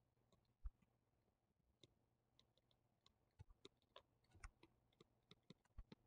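Near silence, broken by faint, irregular clicks and taps of a stylus on a tablet screen during handwriting.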